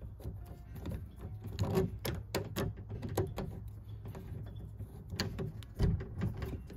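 T20 Torx screwdriver turning out the screw in the hub of a plastic manual window crank, giving irregular small clicks and taps of the tool and the crank, over a low steady hum.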